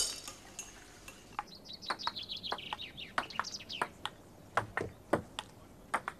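Table tennis ball clicking off paddles and the table in an irregular rally, about two hits a second. A songbird twitters in a quick run of chirps from about a second and a half in until about four seconds in.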